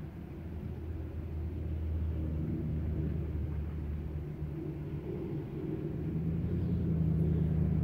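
Low, steady rumble of a motor vehicle, with an engine hum that grows a little louder near the end.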